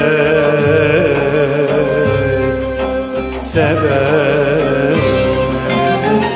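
Turkish folk song (türkü) with bağlama accompaniment: a melody of long held, wavering notes with a brief break about three and a half seconds in and a rising slide near the end, over a steady low pulsing backing.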